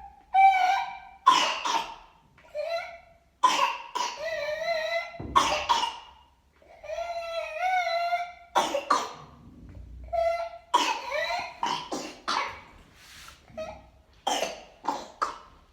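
A child's whooping-cough (pertussis) coughing fit: a long run of sharp coughs in quick series, broken by several long, high-pitched drawn breaths, the whooping typical of pertussis.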